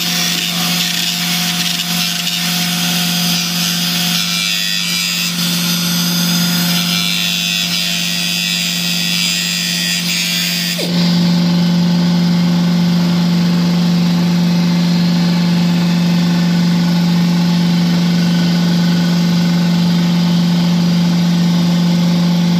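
Small cut-off wheel tool cutting through the Corvette's firewall panel: a steady motor whine with a gritty cutting noise over it. About eleven seconds in the cutting noise stops suddenly and the tool keeps spinning freely, louder and cleaner.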